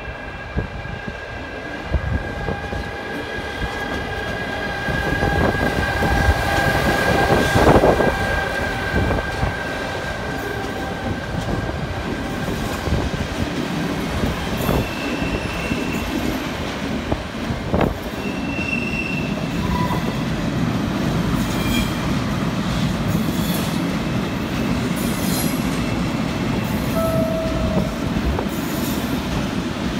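Electric locomotive hauling a freight train past at close range, with a steady high whine that fades out after about nine seconds and the loudest moment as it goes by about eight seconds in. A long run of car-carrier wagons follows, their wheels rolling and clicking over the rails with a few brief wheel squeals.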